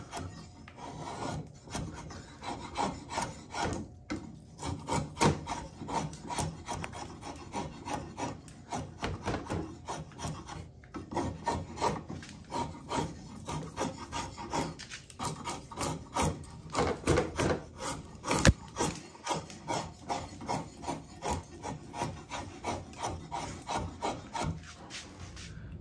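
Kirschen 10-inch straight drawknife carving shavings off dry, dense hickory, with quick repeated scraping strokes about two a second. About eighteen seconds in comes a single sharp click.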